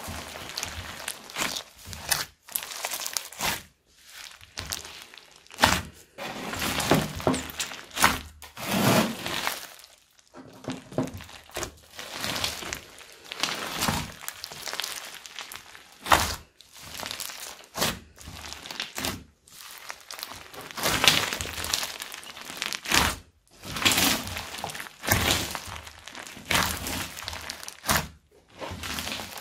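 Hands squeezing and pressing a large mass of sticky slime packed with foam beads and small clay pieces, crunching and crackling in uneven bursts with brief pauses between squeezes.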